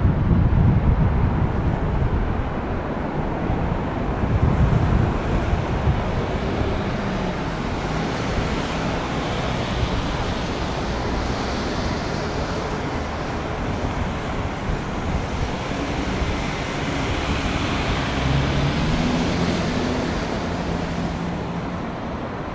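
Jet airliner engines roaring, loudest at the start and easing off slightly toward the end, with wind buffeting the microphone.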